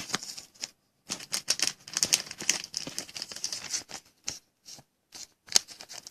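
Thin plastic card sleeve crinkling and crackling as a trading card is handled and slid into it, in a dense run of small clicks, with one sharper tap near the end.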